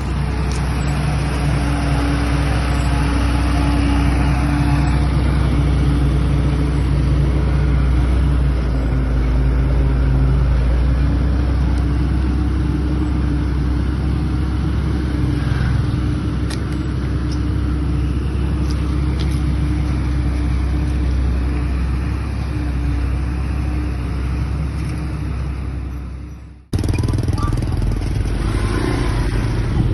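Heavy construction machine engine running steadily under load. It cuts off abruptly about four seconds before the end and is replaced by a different engine sound.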